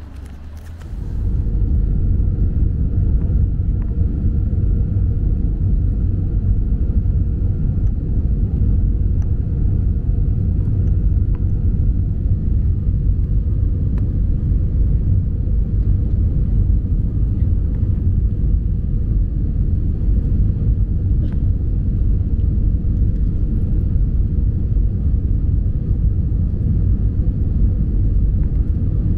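Steady low rumble of an Airbus A320's engines and airflow, heard inside the cabin during the descent to land. It starts suddenly about a second in, with a faint steady hum above it.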